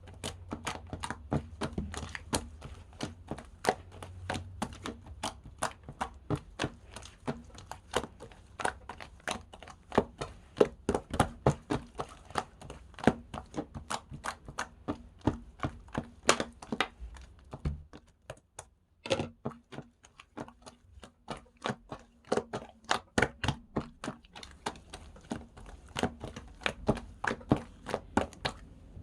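Slime being squeezed and pressed by hand, giving a quick run of sharp wet clicks and pops, several a second, with a brief pause about eighteen seconds in.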